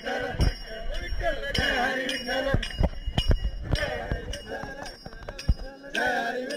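A group of voices chanting a devotional bhajan to Vitthal, kept in time by hand claps and the ringing strikes of small brass hand cymbals (taal).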